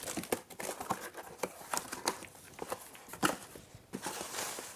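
Irregular rustling and crinkling of packaging with scattered clicks and knocks, as a bicycle saddle is unwrapped by hand.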